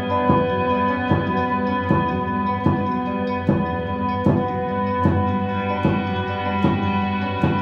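Electronic drum beat played on a Maschine Mk3 pad controller: a strong drum hit about every 0.8 s with lighter ticks between, over sustained held tones.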